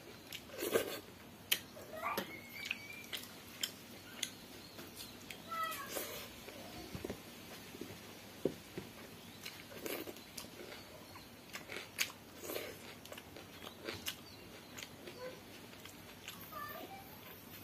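Close-up mouth sounds of someone eating pakhala (rice soaked in water) by hand: frequent short wet smacks and clicks of chewing and lips. A few short cries that glide up and down in pitch come from somewhere in the room, about two seconds in, around six seconds, and near the end.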